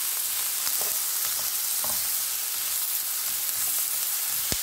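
Chopped onions sizzling in butter in a nonstick frying pan while a wooden spoon stirs and scrapes them, with a sharp knock near the end.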